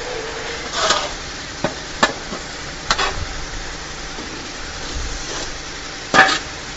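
Metal shovel scooping and scraping through a pile of dry powdered feed material on a hard floor: a handful of short scrapes, the loudest near the end, over a steady hiss.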